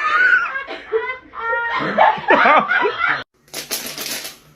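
A person laughing for about three seconds; the sound cuts off abruptly and a short burst of hissing noise follows.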